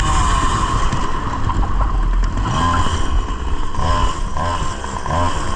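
100cc two-stroke kart engine running on board, its revs rising and falling in quick repeated sweeps in the second half.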